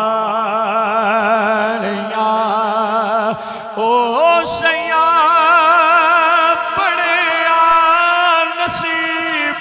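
A man singing a naat in a slow chant, holding long notes with a strong vibrato. A new phrase begins about four seconds in with an upward swoop.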